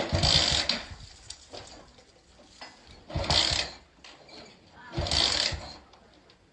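A Honda motorcycle being kick-started over and over: three kicks about two seconds apart, each a short mechanical rattle with a few low thumps as the engine turns over. The engine doesn't catch.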